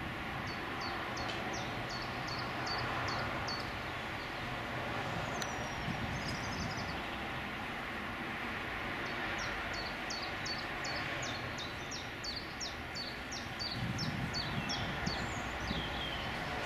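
Steady outdoor rumble, with a small bird singing runs of repeated high notes that each fall in pitch, about three or four a second. One short run comes in the first three seconds and a longer one from about nine seconds in.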